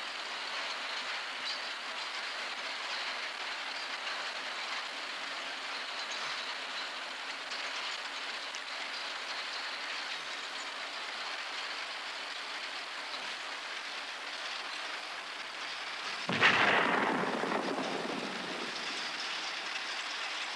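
Steady rain, then near the end a single sudden explosion that dies away over two or three seconds. Soldiers take it for troops blowing up a minefield.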